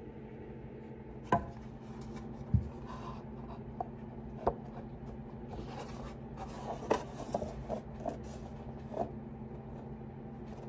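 Handling noise from an unvarnished wooden fiddle body being picked up and turned in the hands: scattered light knocks, taps and rubs, the two loudest knocks about a second and a half and two and a half seconds in, over a steady low hum.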